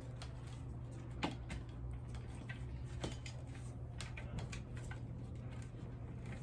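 Irregular clicks and taps of a ring light and its stand being handled and adjusted, two of them louder, about a second in and about three seconds in, over a steady low hum.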